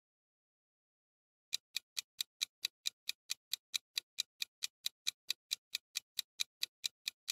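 Countdown-timer ticking sound effect: sharp, even clock-like ticks at about four or five a second, starting about a second and a half in after a silent start, marking the time left to answer.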